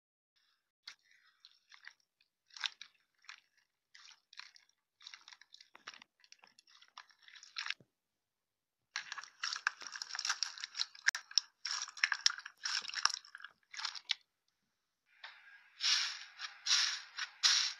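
Hands squeezing and pressing slime, some of it packed with foam beads, giving crunchy crackling and popping. There are scattered crackles at first, then two stretches of dense crunching, each after a brief pause, the last the loudest.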